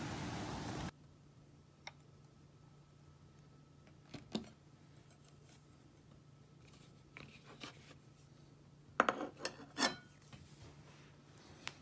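A plate set down on a table: a few short knocks and clinks of crockery, the loudest cluster about nine to ten seconds in, with scattered lighter clicks before and after over a low steady hum. In the first second an even outdoor noise cuts off abruptly.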